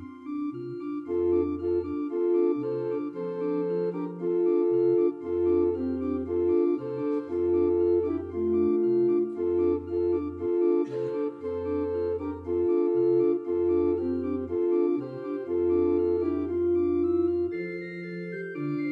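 Church organ playing offertory music: slow, sustained chords over long, low bass pedal notes.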